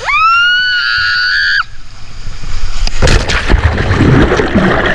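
A person on a water slide gives a high-pitched yell that rises and holds for about a second and a half. About three seconds in the rider splashes into the pool, followed by churning water and bubbling heard from under the water.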